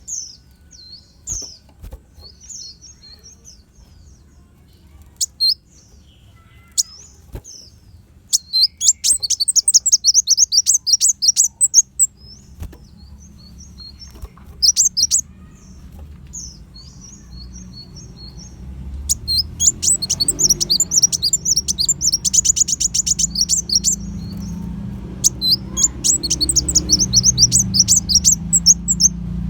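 A kolibri wulung sunbird singing: sharp high chirps at first, then long runs of fast trilled notes, with a rapid buzzing rattle near the middle. A low rumble underneath grows louder in the second half.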